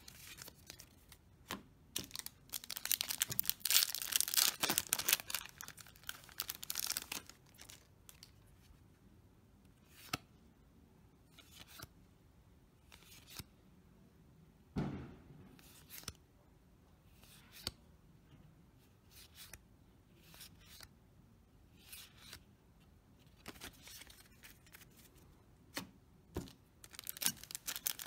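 Paper trading cards being flipped through and shuffled by hand. There is a dense run of card flicks and rustling a few seconds in, then scattered single clicks and one dull thump midway. Near the end comes the crinkle and tear of a foil booster pack being opened.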